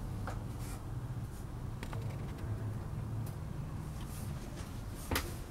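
Scattered light clicks and scuffs over a steady low hum in a small room, with one sharper click about five seconds in.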